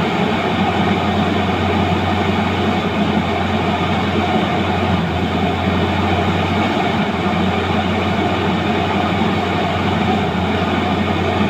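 Sunward rotary drilling rig's diesel engine and hydraulics running steadily, a constant low hum with no change in pitch or level.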